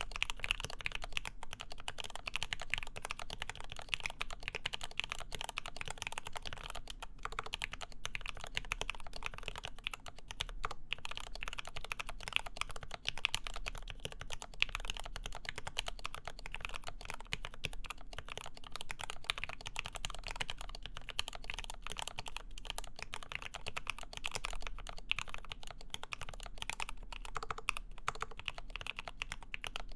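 Continuous fast typing on a Lin Works EM7 mechanical keyboard with an aluminium plate, GMK keycaps and lubed ZealPC Tealios linear switches: a steady stream of smooth, muted key clacks.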